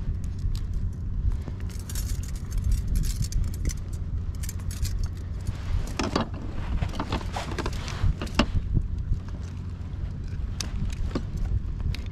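Metal wire and hooks of a multi-hook fishing rig clinking and jangling as they are handled, the clinks bunching in the second half. Under them runs a steady low rumble of wind on the microphone.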